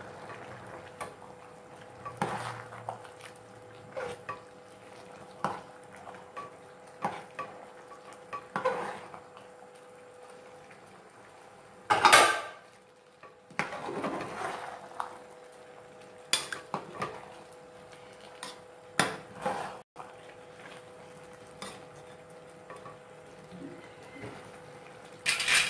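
A spatula scraping and knocking against a metal pressure cooker pot while rice is stirred, over a faint steady hum. There is a louder metal clatter about halfway through, as the cooker's lid is put down, and another near the end.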